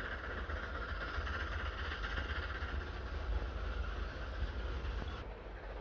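Steam tank locomotive hauling a coach past, a steady rumbling running noise. The sound changes abruptly about five seconds in, losing its upper part.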